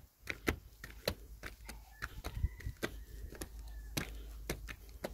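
Footsteps climbing stone stairs: shoes scuffing and striking the steps at about two a second, over a steady low rumble.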